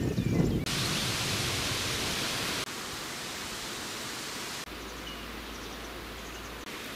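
Outdoor rural ambience in edited segments that change abruptly about every two seconds: a low rumble at the start, then a steady hiss like wind in foliage, with faint bird chirps and a low steady hum in the later part.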